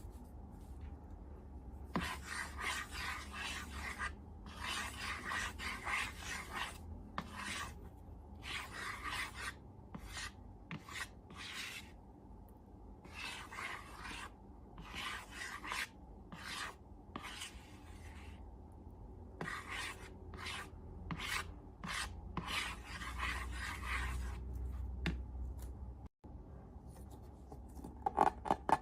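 Slime being worked by hand: a series of short noisy strokes, most under two seconds, with brief pauses between them.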